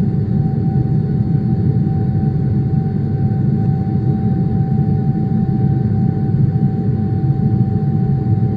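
Boeing 777 jet engines heard from inside the cabin: a loud, steady low rumble with a constant whine above it.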